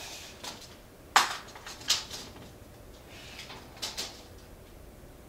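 A steel tape measure being pulled out and handled against a wall: brief sliding rasps and a few sharp metallic clicks, the loudest about a second in.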